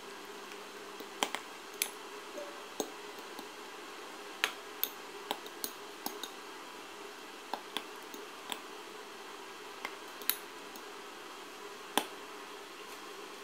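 Metal fork clinking against a bowl while stirring raw chicken pieces in beaten egg: sharp, irregular clinks, roughly one a second.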